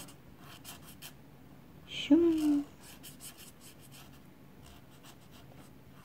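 Felt-tip marker scratching on paper in short, faint strokes while drawing eyes. A brief vocal sound from the person drawing comes about two seconds in.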